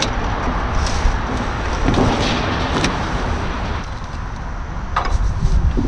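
Retractable ratchet straps being worked: a few sharp metallic clicks and clanks about two seconds apart over a steady low rumble of vehicle noise.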